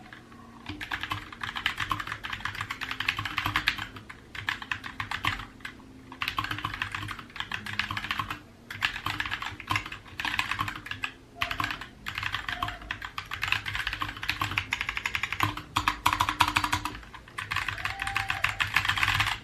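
Typing on a Glorious GMMK Compact 60% mechanical keyboard with silent Gateron Red linear switches and double-shot PBT keycaps: fast, even key clatter in runs of a few seconds separated by brief pauses.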